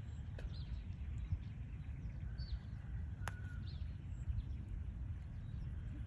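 Outdoor ambience: a few short, high chirps falling in pitch, typical of small birds, over a steady low rumble, with one sharp click about three seconds in.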